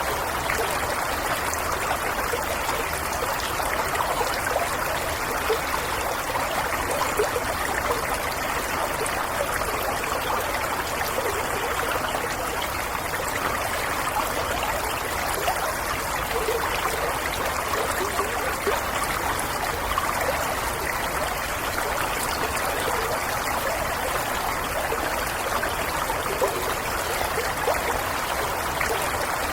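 A stream and waterfall flowing steadily: continuous rushing water with small splashes and gurgles throughout, holding an even level.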